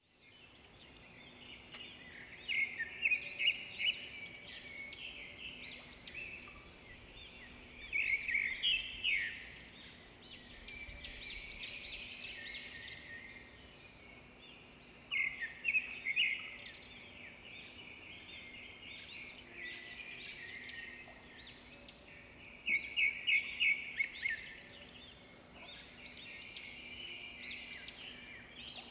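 Small birds singing and calling, with bursts of rapid repeated chirps every several seconds over a faint steady hum.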